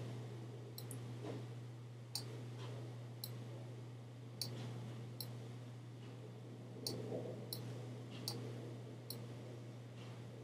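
Computer mouse clicking at irregular intervals, about a dozen sharp single clicks, roughly one a second, over a faint steady low hum.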